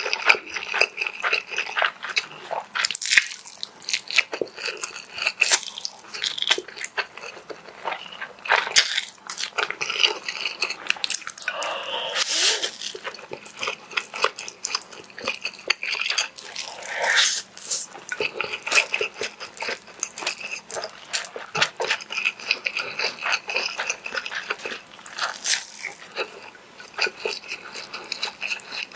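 Close-miked eating of Indomie goreng instant fried noodles: slurping noodles in through the lips and chewing with wet smacking mouth sounds. Dense quick smacks run throughout, with a few longer slurps in between.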